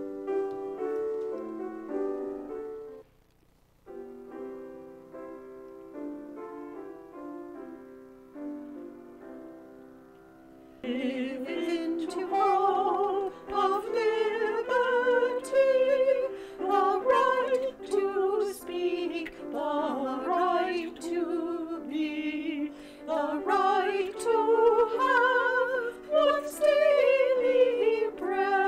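Piano playing a hymn introduction, then from about eleven seconds in a solo singer with strong vibrato sings the hymn over the piano accompaniment.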